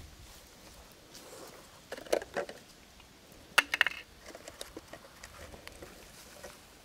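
Light clicks and taps of small objects being handled, in two short clusters about two seconds and three and a half seconds in, then faint scattered ticks.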